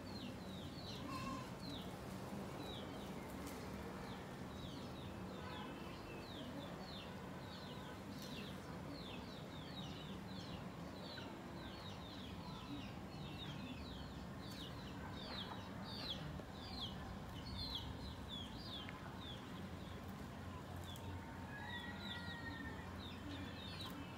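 A bird chirping over and over, short high notes that each drop in pitch, about two or three a second, over a steady low outdoor background.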